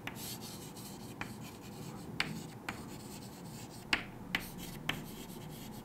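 Chalk writing on a chalkboard: several sharp taps of the chalk against the board over a faint scratching as the letters are drawn.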